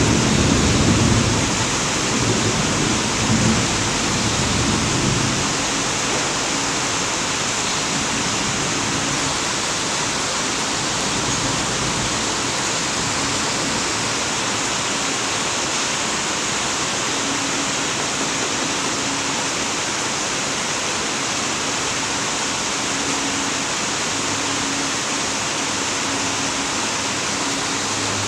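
Steady rushing noise, with low rumbling thumps during the first few seconds.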